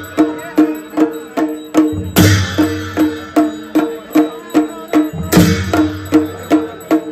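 Dhol and damau drums played in a steady folk rhythm of about two or three strokes a second. Twice, about two seconds in and again near the end, a heavier beat lands with a deep boom and a clashing ring.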